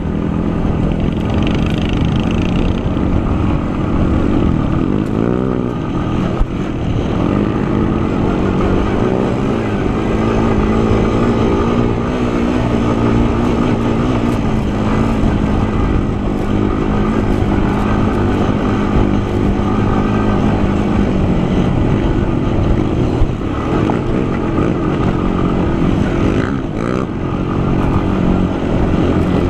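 Sport quad's engine running under way, its pitch rising and falling with the throttle, heard close up from the handlebars with rushing noise over it.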